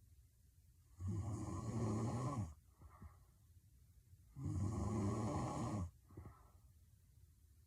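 A young woman snoring hard in her sleep: two loud snores, each about a second and a half long and about three and a half seconds apart, with a soft breath out after each.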